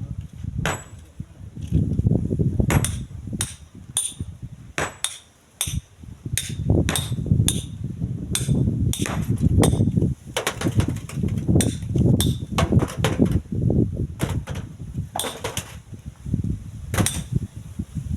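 Strong gusty wind buffeting the microphone, a low rumble that surges and drops, with many sharp, irregular knocks throughout.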